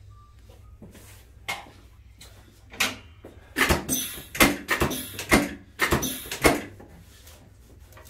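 Sharp clacks from a chiropractic adjusting table under hand thrusts on a patient's hip and lower back. There are two single knocks, then a quick, uneven run of about ten loud clacks lasting around three seconds.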